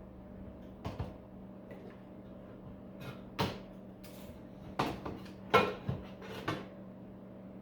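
Irregular sharp clicks and knocks from metal tools and wiring being handled and cut inside a scrapped battery charger's metal case, about six in all, the loudest a little past halfway. A steady low hum runs underneath.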